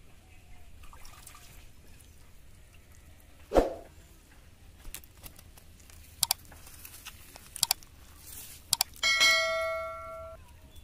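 Subscribe-button animation sound effect: a few sharp clicks, then a bell chime near the end that rings for about a second and fades. A single dull thump comes about a third of the way in.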